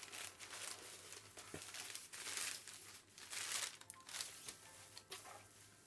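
Bubble wrap and packaging crinkling and rustling in irregular handfuls as a package is unwrapped, loudest about two and a half and three and a half seconds in.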